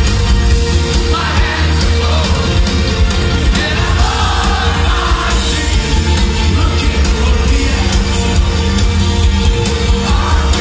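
Live rock band with synths and singing, heard loud and bass-heavy through a concert PA from within the audience.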